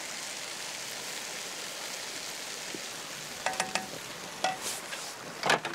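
Ground beef and onion sizzling in butter and oil in a casserole pot, a steady hiss. From about halfway through come several sharp clicks and knocks of the pot being stirred.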